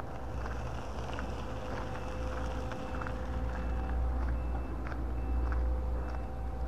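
Low, steady engine rumble of a heavy vehicle with a steady tone over it and short high beeps that repeat about once a second, as from a reversing alarm. Faint footsteps on the path tick about once a second.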